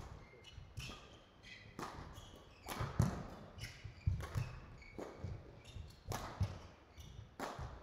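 Badminton rally: rackets hitting the shuttlecock back and forth, about one sharp hit or footfall a second, with short high squeaks of shoes on the court floor between them.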